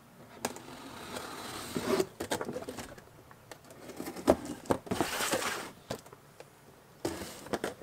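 Hands opening a cardboard box: scratching and rubbing at the taped flaps, with scattered clicks and taps and a longer rustling scrape about five seconds in.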